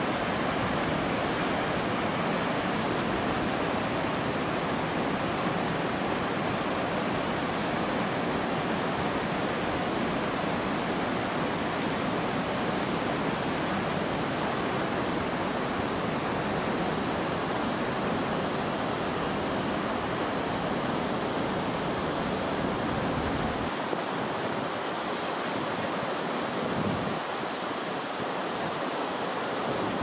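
Fast mountain river rushing over rapids, a steady whitewater noise; the deepest rumble thins out about three-quarters of the way through.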